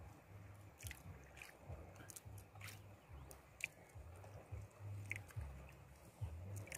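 Faint wet handling noises as a hook swallowed deep is worked out of a small fish by hand: soft squelches and a scatter of small clicks, over a low rumble that comes and goes.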